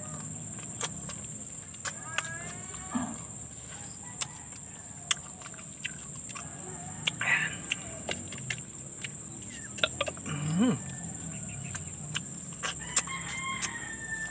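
Mouth sounds of eating siniguelas fruit dipped in salt and chili: repeated sharp lip smacks and chewing clicks. A few farm-animal calls are heard in the background.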